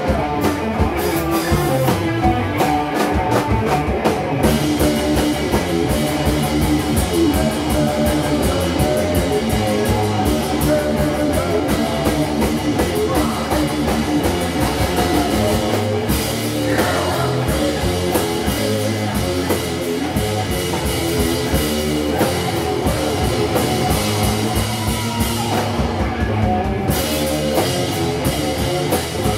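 Live rock band playing loudly: electric guitars over a drum kit, at a steady driving level.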